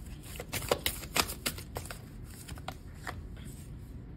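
A deck of oracle cards being shuffled by hand: a quick run of light card clicks and snaps, spacing out after about two seconds.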